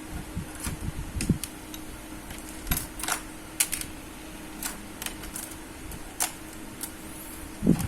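Small irregular clicks and taps of screws and a screwdriver on a laptop's plastic bottom case as the case screws are put back in, over a faint steady hum.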